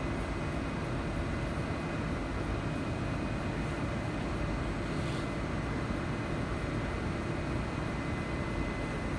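Steady interior hum of a KSF CT251 metro train car standing at a station platform with its doors open, with a thin steady whine above it.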